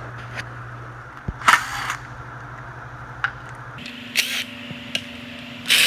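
Cordless power driver spinning out the oil pan bolts in several short bursts over a steady low hum, the loudest burst about one and a half seconds in.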